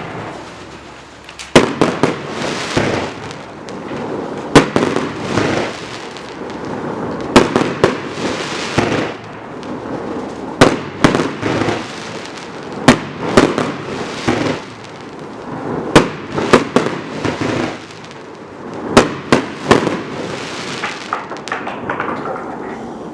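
A 42-shot, 500-gram consumer fireworks cake firing: a loud, sharp bang every second or two, with a dense spell of crackling between the shots from the silver crackling willow breaks.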